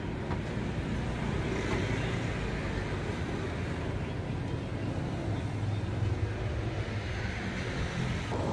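Street traffic noise: a steady low rumble of passing vehicles, swelling a little about six seconds in.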